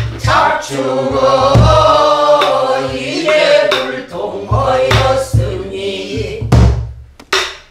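A woman singing pansori in long, bending held notes, accompanying herself on a buk barrel drum: deep drum strokes now and then, with a few sharp clicks of the stick. The voice breaks off shortly before the end.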